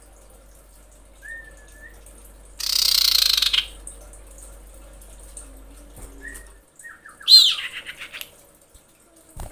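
Female common iora calling: a short rising whistle, then after a harsh hissing burst of about a second, a rapid run of whistled notes near the end with one loud sweeping note.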